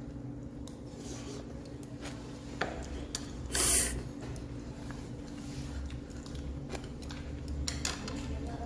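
Quiet, small clicks and light scraping as a metal pick lifts shell pieces off a raw egg's membrane. There is one short, loud hiss about three and a half seconds in.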